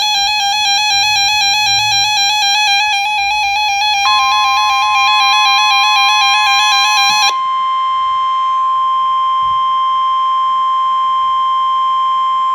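Emergency Alert System attention tones ahead of a severe thunderstorm warning. A pulsing two-tone alarm is joined about four seconds in by a steady single-pitched tone. The pulsing alarm stops about seven seconds in, and the steady tone carries on with a fainter, higher tone alongside.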